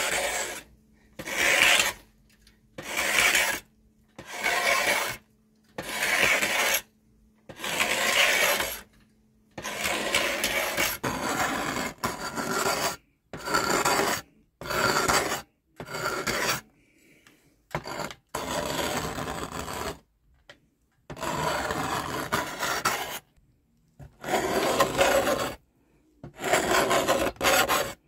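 A hand tool scraping and shaving bark and wood off a wooden hiking stick in repeated strokes, each lasting about a second, with short pauses between them.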